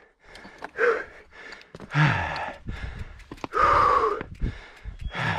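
A man panting after a hard climb: a few heavy, gasping breaths and sighs, each up to about a second long. He is out of breath from the exertion.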